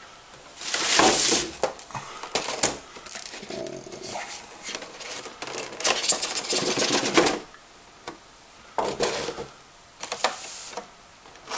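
Clear plastic blister packaging being handled, crackling and clicking in several bursts.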